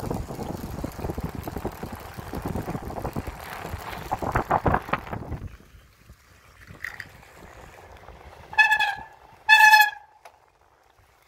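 Wind buffeting and the rolling rattle of a bicycle ride for about five and a half seconds, then quieter. Near the end come two short, loud, pitched honks about a second apart.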